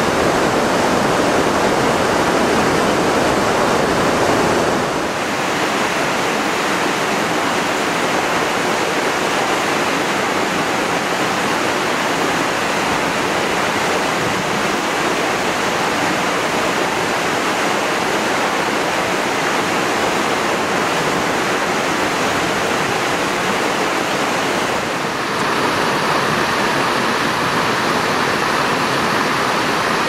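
Continuous rush of falling water from waterfalls: first a broad river waterfall, then a smaller waterfall spilling into an icy pool. The sound changes abruptly about five seconds in and again near the end.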